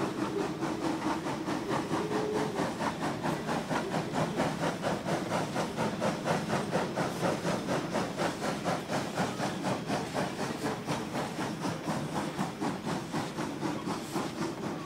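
Arcade & Attica No. 18, a 2-8-0 steam locomotive, chuffing under power as it passes: a rapid, even beat of exhaust with steam hiss that keeps on as its passenger coaches roll by.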